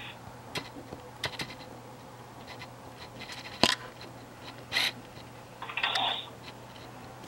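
Munchkin cat chattering while watching something above it: scattered short clicks, the sharpest about three and a half seconds in, and a brief half-second chattering burst near six seconds in.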